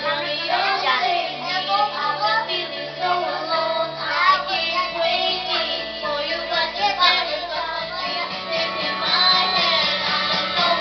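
A child singing along with karaoke backing music playing from a television.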